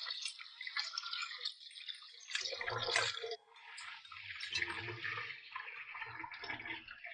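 Tap water running steadily over live mantis shrimp as they are rinsed clean by hand in the sink, with splashing and handling sounds joining from about halfway.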